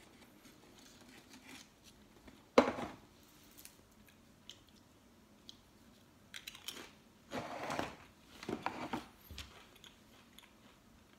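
A Pringles Wavy potato crisp being bitten and chewed: one sharp crunch about two and a half seconds in, then a run of short crunching chews later on.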